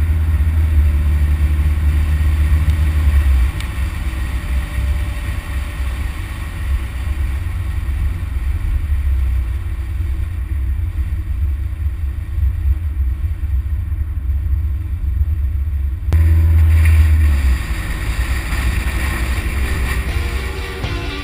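A low, steady rumble with a faint hiss above it. It is strongest for the first few seconds, eases off about three and a half seconds in, and swells again for a second or so past the middle.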